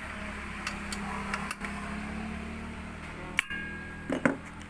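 Metal parts of an angle grinder stand clicking and knocking together as they are handled and fitted by hand, with one short metallic ring about three and a half seconds in. A steady hum runs underneath.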